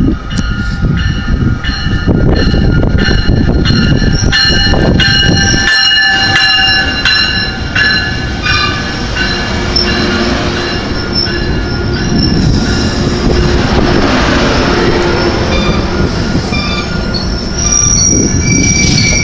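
Metrolink commuter train arriving, its cars rumbling while the steel wheels and brakes squeal in high sustained tones that shift in pitch. A rushing hiss comes in for a few seconds about midway.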